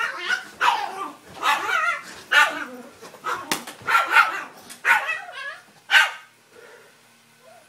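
A dog barking repeatedly in short loud barks, about ten in six seconds, stopping about six seconds in.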